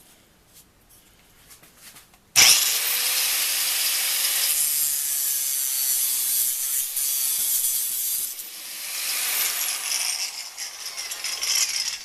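A power tool cutting or grinding a 1/4-inch rod down to rivet length. It starts abruptly a couple of seconds in, its pitch rising briefly at the start, runs steadily for about ten seconds and stops near the end.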